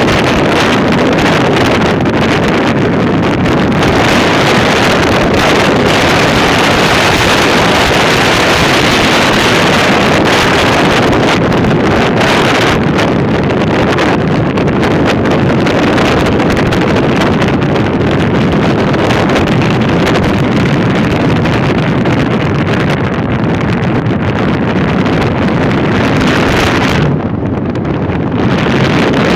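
Loud, steady wind noise buffeting the microphone, dipping briefly near the end.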